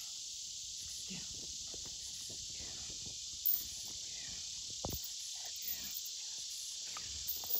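Scuffling footsteps and a pit bull's paws on dirt and grass as the dog jumps at a man, with a few light knocks and one sharper thump about five seconds in, over a steady high hiss of insects.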